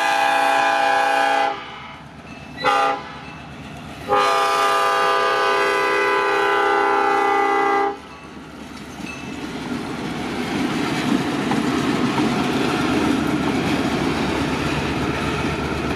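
Air horn of an EMD GP38 freight locomotive sounding the close of a crossing signal: the end of a long blast, a short blast, then a long blast of about four seconds. The horn sounds weird and not right. The train's rumble and wheel clatter then build steadily as it passes.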